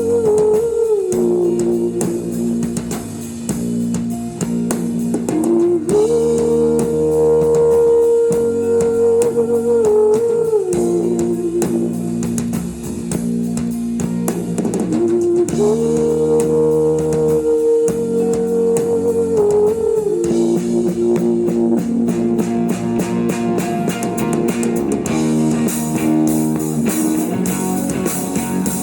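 Live psychedelic rock band playing an instrumental passage: a sustained lead guitar line that holds a high note, slides down and comes back in a repeating phrase over rhythm guitar, bass and drum kit.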